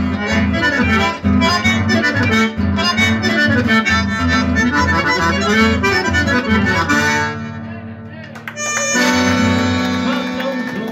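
Accordion and acoustic guitar playing a tune with a steady beat. The playing thins out about seven seconds in, and the song ends on a long held final chord.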